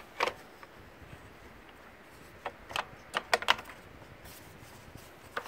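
Clicks and light knocks of a plastic recoil pull-starter housing being handled and seated onto a Honda lawnmower engine: one knock at the start, then a quick run of four or five clicks about three seconds in.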